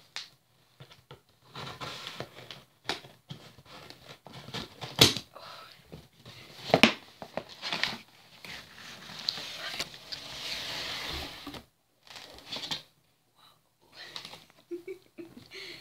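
A cardboard subscription box being opened by hand: scattered scraping and tapping, two sharp knocks about five and seven seconds in, and a longer stretch of rustling packing in the middle.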